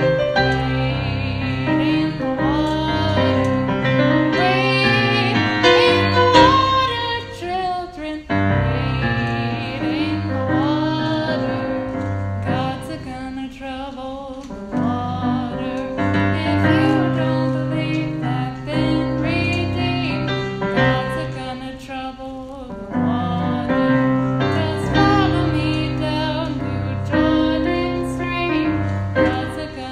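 A woman singing a slow song with piano accompaniment, her voice wavering with vibrato on held notes and pausing briefly between phrases. It is a voice-recorder app recording on a phone, and the top end sounds dull.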